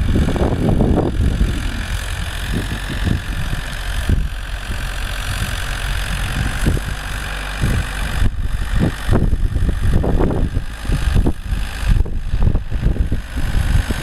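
Ford 7610 tractor's diesel engine running steadily under load as it pulls a three-furrow plough through the soil, with gusts of wind buffeting the microphone.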